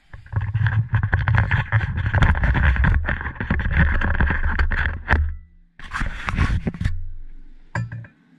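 Camera handling noise as the camera is moved and set down: about five seconds of rubbing, scraping and small knocks over a low rumble, a brief pause, another second of rubbing, then a single knock near the end.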